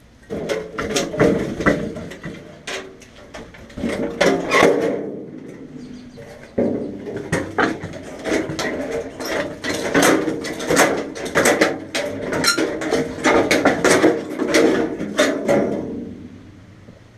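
Metal clattering and chattering as the old welder's steel parts are cut apart, in two long spells with a short break about six seconds in, where it starts again abruptly.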